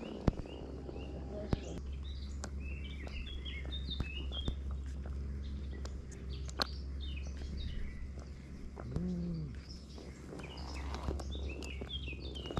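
Small birds chirping repeatedly in quick short notes from the lakeside trees, over a low steady rumble, with a few sharp clicks scattered through and a short low call about nine seconds in.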